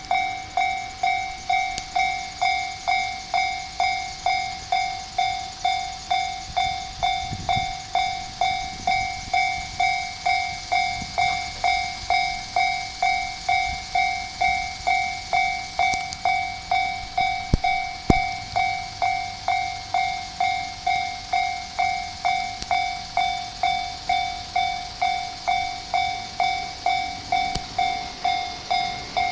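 Japanese railway level-crossing warning bell ringing steadily at about two strikes a second, each strike ringing and fading before the next. It signals that the crossing is closed for an approaching train.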